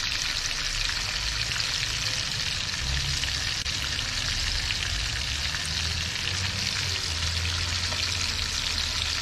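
Redfish fillets frying in a pan: a steady, dense sizzle with a low rumble underneath.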